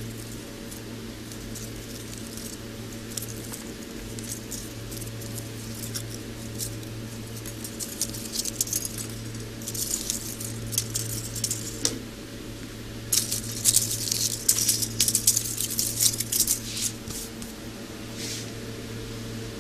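Aluminium foil and paper strip from a burst electrolytic capacitor crinkled and pulled apart by hand. The crackling rustle starts sparse and grows into loud clusters in the second half, over a steady low hum.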